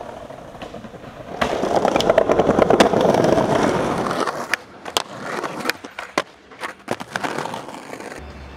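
Skateboard wheels rolling loudly over rough pavement for a couple of seconds, then a series of sharp wooden clacks and cracks of the board striking the ground.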